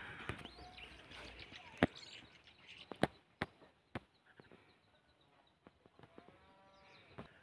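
A few sharp, irregular knocks of wood being split in the first four seconds, with birds chirping faintly. A faint bleat comes near the end.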